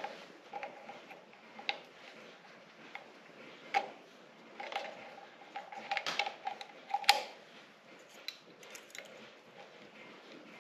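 Irregular light clicks, taps and metal clinks from hand tools and small metal parts being handled on a tractor distributor, with a few sharper knocks, the loudest about seven seconds in.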